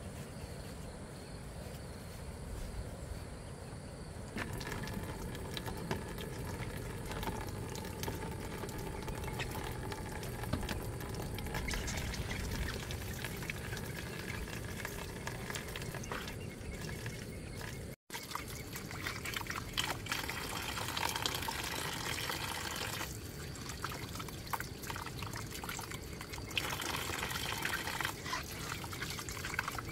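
Water pouring and trickling, with a brief cut-out about eighteen seconds in.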